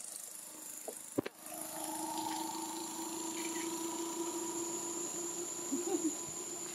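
A steady engine hum holding one pitch, starting after a sharp click about a second in, over the continuous high buzz of insects.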